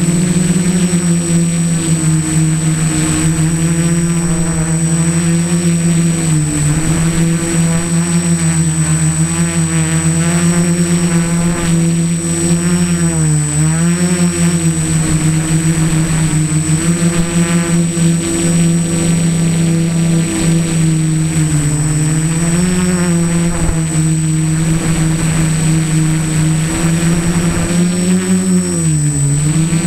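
Electric motors and propellers of a home-built mini tricopter in flight, heard from on board as a loud, steady buzz. Its pitch dips and recovers four times, about a quarter, halfway, three quarters of the way and near the end, with a steady high whine underneath.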